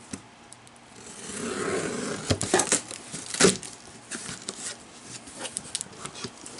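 Scissors slitting the packing tape on a cardboard box: a rasping scrape builds about a second in as the blade is drawn along the tape, then come a few sharp snaps and clicks of the blades and cardboard, with lighter clicks after.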